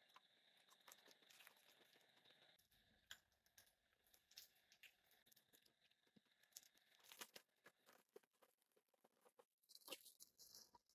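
Faint, scattered clicks and crunching of someone eating ice cream.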